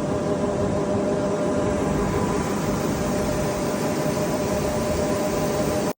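Steady running noise of a vehicle on the move: a constant engine drone with a few held tones over an even rushing noise. It cuts off abruptly near the end.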